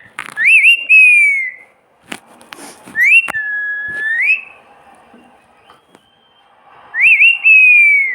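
Pet parrot whistling three loud clear whistles: the first and last rise with a quick wobble and then glide slowly down, the middle one holds a lower steady note before rising at its end. A few sharp clicks fall between the first and second whistles.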